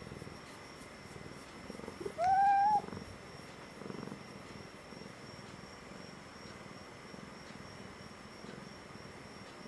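A domestic cat meows once about two seconds in, a short call that rises and then holds its pitch. It stands over soft, low cat purring.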